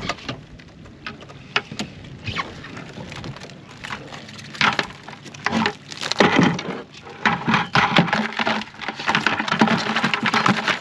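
Blue crabs being shaken out of a wire mesh crab trap into a plastic bucket: irregular knocks, clicks and rattles of the trap and the crabs' shells against the bucket, growing into a denser clatter near the end.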